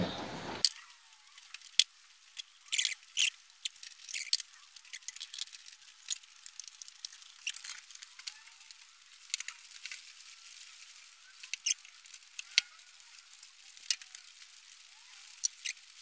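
Faint, scattered clicks and scrapes of hand work in the V8's engine bay as the spark plug leads and spark plugs are taken out to be cleaned.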